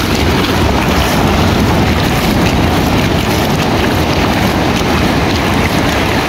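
Wind buffeting the microphone as a steady low rumble, over the continuous rush of breaking surf.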